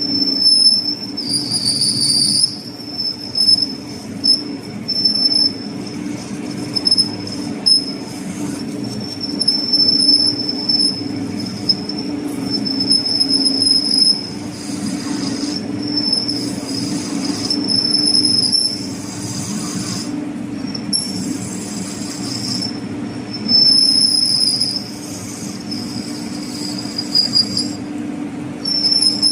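Metal lathe taking a facing cut on a flange, the cutting tool squealing in a high whine that breaks off and returns several times over a steady low machine hum.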